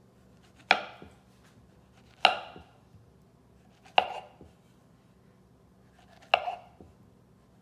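Kitchen knife slicing through a peeled banana and knocking down onto a wooden slab cutting board, four sharp knocks with a short ring, about one and a half to two and a half seconds apart.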